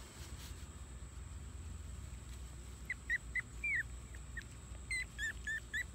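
Three-week-old puppies whimpering: a run of short, high squeaks that starts about halfway through.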